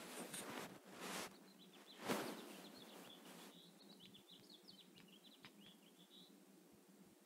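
Small birds chirping in a quick twittering run of short high chirps that stops about six seconds in. Several brief noisy rustles come in the first couple of seconds, the loudest about two seconds in.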